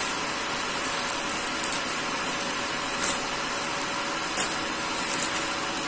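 Plastic courier pouch crinkling a few times as it is cut and pulled open with a utility knife, about halfway through and again near the end, over a steady background hiss with a faint hum.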